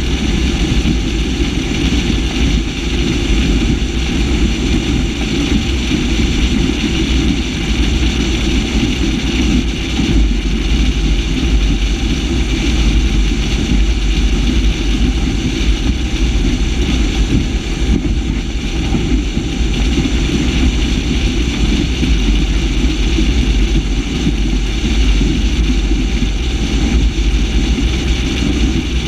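Mercruiser 496 HO V8 of a Warlock 25 SXT catamaran running steadily under way, a low rumble that holds even with no change in pitch.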